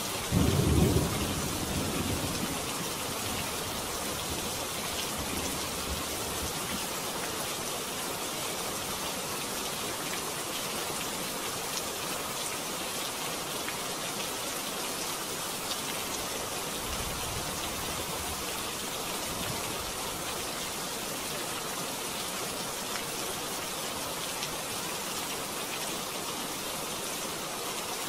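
Steady rain hissing throughout. A loud thunderclap breaks about half a second in and rumbles away over the next two seconds, and fainter thunder rumbles twice more about 17 and 19 seconds in.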